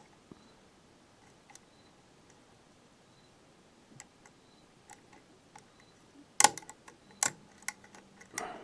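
Lock pick clicking against the pins of a pin tumbler lock fitted with spool security pins, the plug held in a false set. First scattered faint ticks, then a cluster of louder sharp clicks about six and a half seconds in.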